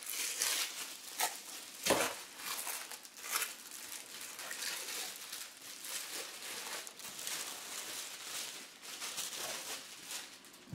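Thin clear plastic wrapping crinkling as it is peeled off a silicone soldering mat, a dense run of small crackles, with a sharper crackle about two seconds in.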